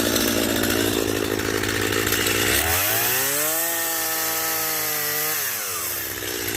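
Gas chainsaw cutting through a log, the engine pulled down under load. About two and a half seconds in, the engine speed rises to a high, steady whine, holds for about two seconds, then drops back down as it cuts again.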